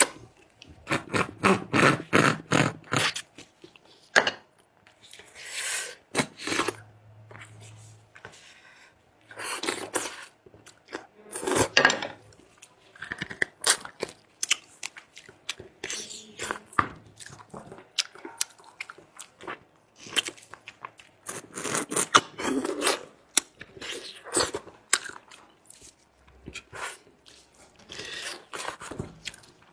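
Close-miked eating sounds: irregular chewing and crunching with sharp clicks and scrapes.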